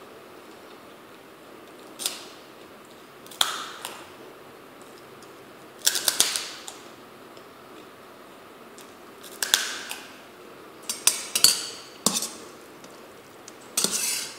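Crisp crunching bites into a giant Indonesian kerupuk cracker, a sharp crackle every few seconds with a quick cluster of crunches about eleven seconds in. Near the end a steel fork clinks in a metal pot of noodles.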